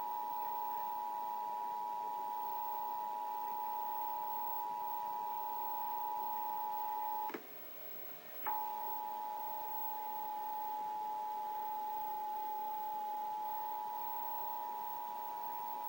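Emergency Alert System attention signal: two steady tones at about 853 and 960 Hz sounding together. It cuts out with a click about halfway through, is gone for about a second, then comes back.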